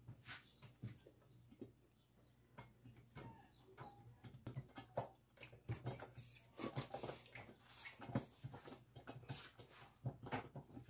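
Jollof rice liquid simmering in a covered pot under a glass lid: faint, irregular popping and ticking of bubbles, busier in the second half, over a low steady hum.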